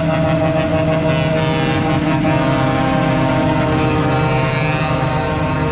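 Tractor-trailer's diesel engine running steadily as the truck drives past close by, a continuous engine drone with a clear pitch.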